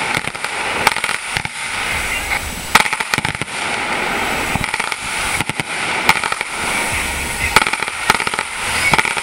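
A fireworks display going off: sharp bangs and cracks from bursting shells come in quick, irregular succession over a continuous crackle, with a particularly loud crack about three seconds in.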